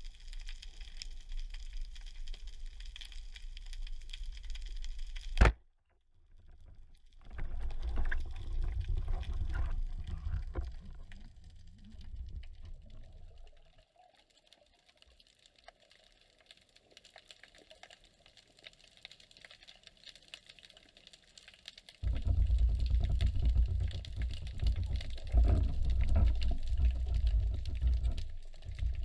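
Underwater sound picked up by a diving camera. Low, crackling water rumble from movement comes and goes, with a sharp click about five seconds in and a near-quiet stretch in the middle.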